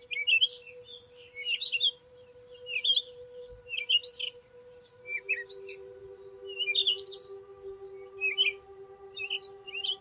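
Birds chirping in short, quick bursts of calls about once a second, over a steady droning tone that steps down to a lower note about halfway through.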